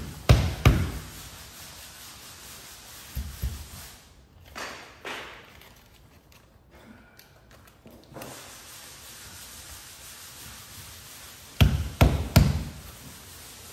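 Hands knocking and rubbing on a car's rear window glass as it is pressed and worked into its opening. A couple of sharp knocks come just after the start, softer thumps and rubbing follow in the middle, and three quick knocks come near the end.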